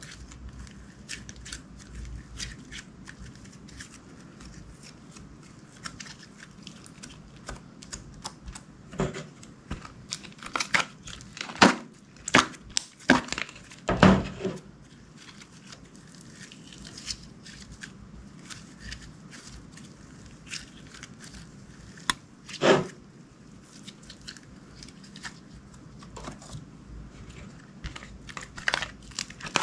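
Clear slime being worked by hand, making a run of small sticky clicks and crackles, with a handful of louder pops around the middle and one more about two-thirds of the way through.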